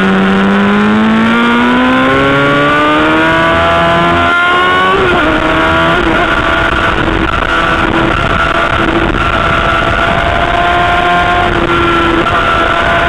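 Sport motorcycle engine at high revs, heard from onboard on a race track: the pitch climbs steadily under acceleration, drops with an upshift about five seconds in, then holds high and nearly steady.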